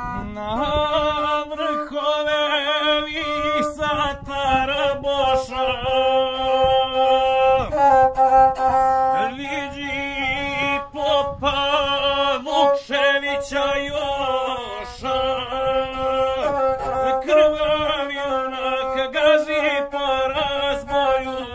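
A man singing an epic song to the gusle, a single-string bowed folk fiddle. The bowed string follows the voice closely in a wavering, ornamented line.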